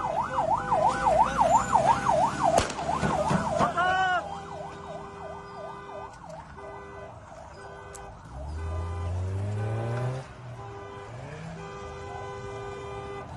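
A siren wailing in rapid up-and-down sweeps, several a second, loud for the first four seconds. It then gives way to a lower tone beeping on and off, with a low rising drone from about eight to ten seconds in.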